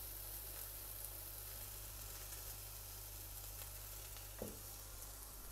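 Zucchini and cherry tomatoes frying in oil in a pan, a faint, steady sizzle as the tomatoes sear.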